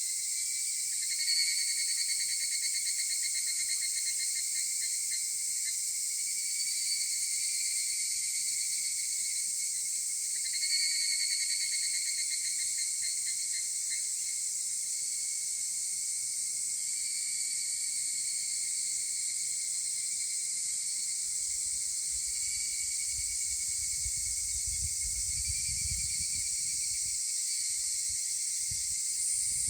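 Higurashi cicadas (Tanna japonica) in a dawn chorus: over a steady high-pitched insect hiss, a nearby one calls its pulsed, ringing "kana-kana" phrase about a second in and again about eleven seconds in. Fainter calls answer every few seconds. A faint low rumble comes in during the last third.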